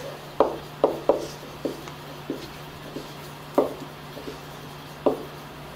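Marker writing on a whiteboard: about eight short, uneven taps and strokes of the tip against the board as a word is written by hand.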